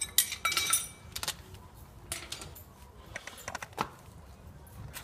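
Metal hand tools clinking and rattling as they are handled, with a cluster of ringing clinks in the first second and scattered lighter clicks after.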